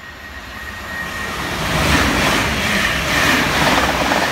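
Electric passenger train passing through the station at speed, its rushing noise building as it approaches and staying loud as the coaches sweep past from about two seconds in. A thin high whine sounds at the start and fades about a second in.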